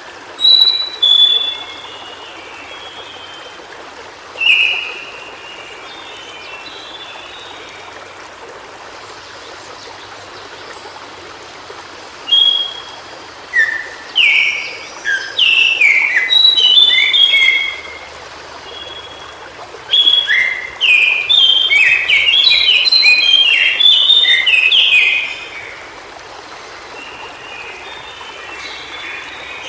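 White-browed shortwing singing: a few short high notes near the start, then two longer phrases of rapid, jumbled, mostly down-sliding notes, over the steady rush of running water.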